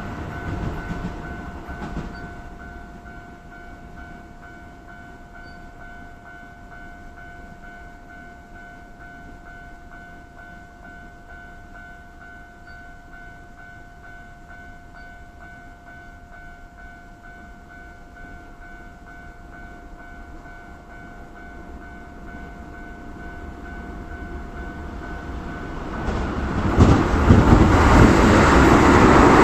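Level-crossing warning bell ringing steadily while the noise of a passing Keio Line electric commuter train dies away. Another train's rumble then grows over the last several seconds and is loud near the end, covering the bell.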